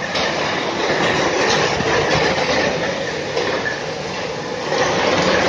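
Heavy rain mixed with hail pelting down, a dense steady clatter.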